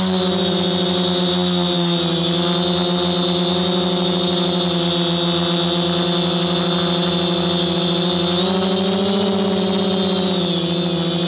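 Quadcopter's brushless motors and propellers, heard up close through its onboard camera, humming steadily as it hovers. The pitch rises briefly about eight seconds in with more throttle and settles back a couple of seconds later.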